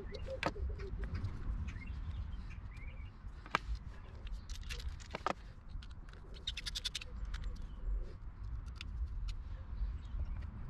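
Sharp clicks and taps of screwdrivers and plastic plug parts being handled while a blue mains hook-up plug is wired onto a cable, the loudest about half a second, three and a half and five seconds in, with a quick rattle of fine ticks a little past halfway. Birds chirp faintly over a steady low rumble.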